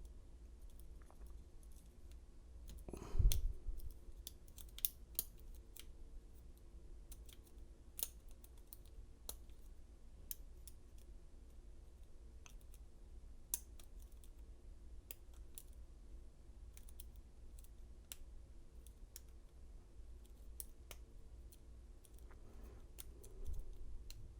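Lock pick and tension bar working the pin stack of a vintage brass padlock: scattered light clicks and scrapes of the metal tools in the keyway, with one louder knock about three seconds in, over a faint steady hum.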